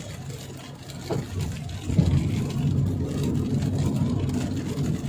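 Car driving on a rain-soaked road, heard from inside the cabin: a steady rumble of engine and tyres on wet tarmac that gets louder about two seconds in.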